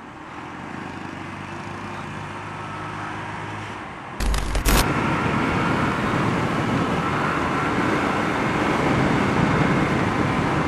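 Honda motorbike engine running steadily while riding, then wind buffeting the rider's microphone about four seconds in, after which steady wind noise covers much of the engine sound as the bike picks up speed.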